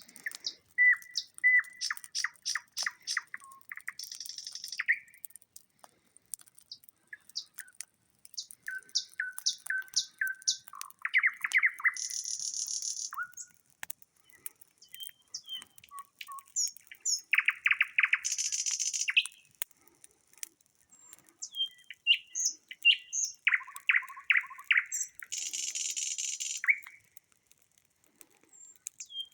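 Nightingale singing loudly and richly in separate phrases of fast repeated notes, whistled runs and rattling rolls, with short pauses between them.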